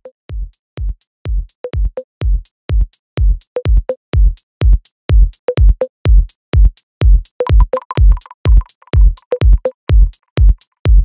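Techno track: a steady four-on-the-floor drum-machine kick about two beats a second with crisp high clicks and short synth blips, fading in over the first few seconds. A higher synth note joins briefly past the middle.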